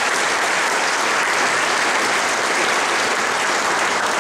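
An audience clapping steadily: sustained applause from a seated crowd.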